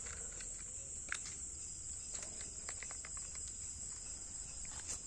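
Crickets chirring steadily, with a few faint, short clicks.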